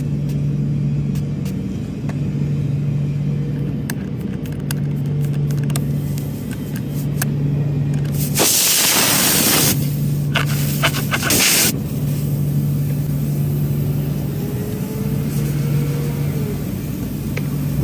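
Background music with a low, pulsing bass tone, broken about halfway through by two loud bursts of hissing noise, the first over a second long, the second shorter, with scattered clicks.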